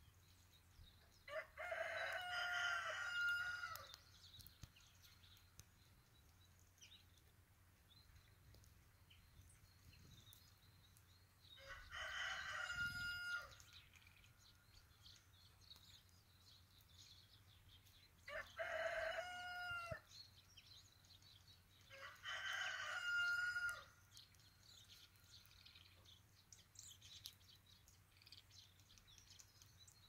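A rooster crowing four times, each crow about two seconds long, with faint small-bird chirps between.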